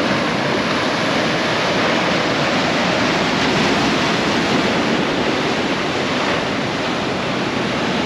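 Steady rush of ocean surf and breaking waves.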